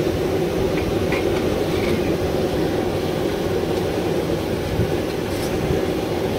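Boondi deep-frying in a large kadhai of hot oil: a steady, dense bubbling sizzle, with a few light clicks of the metal slotted ladle about a second in.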